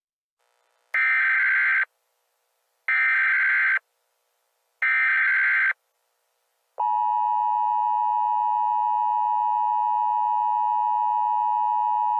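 Emergency Alert System signal: three short bursts of SAME header data, about two seconds apart, then the steady two-tone EAS attention signal starting about seven seconds in. Together they mark the start of an emergency alert.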